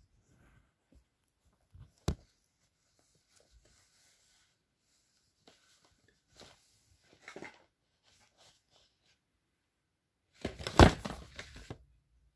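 Handling noises from a phone camera being picked up and moved, and a cardboard box being handled: a sharp knock about two seconds in, scattered rustles, then a loud rustling clatter near the end.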